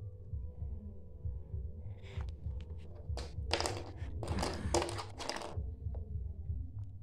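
Small hard-plastic toy pieces being handled and fitted together: rustling, scraping and clicking of plastic, densest in the middle few seconds, over a steady low hum.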